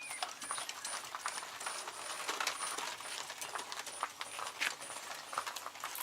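Child's quad bike on its new wheels rolling in reverse, the tyres crunching and clattering over the ground in a dense run of clicks. A faint high beep repeats about twice a second and stops near the end.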